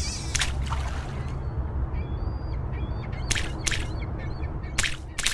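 Sound effects of a logo animation: a steady low rumble with short high chirps in the middle and sharp cracks, one about half a second in, two a little after three seconds, and two more near the end.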